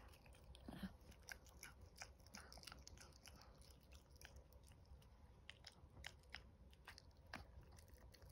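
A 19-week-old chihuahua puppy gnawing on a chew stick held in a hand: faint, irregular crunching and clicking of its small teeth on the chew.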